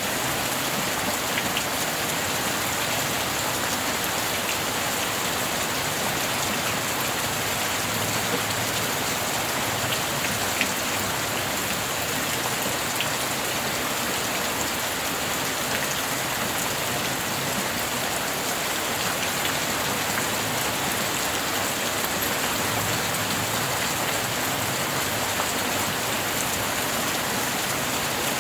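Steady heavy rain falling on a surface, an even hiss of many drops with a few individual drop ticks.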